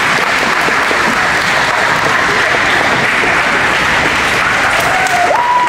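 Audience applauding steadily after a roller-skating routine, with a long high whoop from the crowd near the end.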